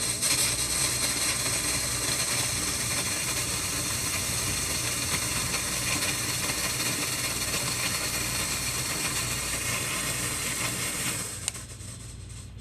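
Smoke machine running to find a vacuum leak: a loud, steady hiss that starts abruptly and cuts off with a click about eleven seconds in.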